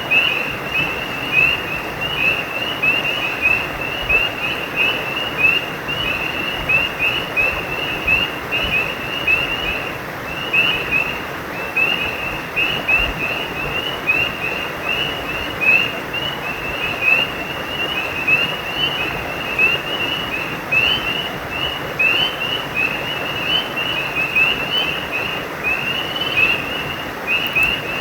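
Frogs calling in an unbroken run of short, high chirps, several a second, over the steady rush of a stream.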